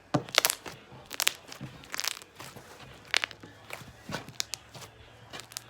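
Slime being squished and worked in the hands, giving irregular sticky clicks and crackles, loudest in the first second or so.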